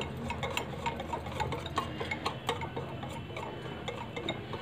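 Gram-flour (besan) batter being beaten by hand in a glass bowl: a quick, regular run of wet slaps and light ticks, several a second.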